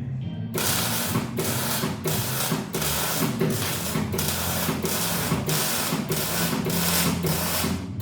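Gas-shielded welding arc crackling and hissing in short runs, breaking off briefly about twice a second, with music playing underneath.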